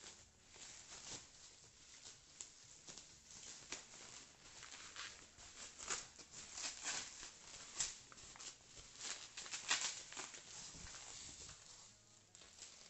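Plastic bubble wrap crinkling and rustling as it is pulled off a parcel by hand: an uneven run of crackles, busiest in the second half.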